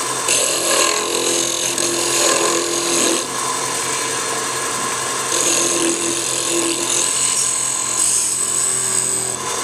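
Wood lathe running steadily while a skew chisel cuts a taper on the spinning wooden workpiece. The cutting hiss comes and goes in three stretches as the tool is laid on and eased off.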